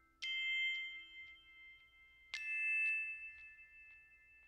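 Background music: two bell-like notes struck about two seconds apart, each ringing on as it fades.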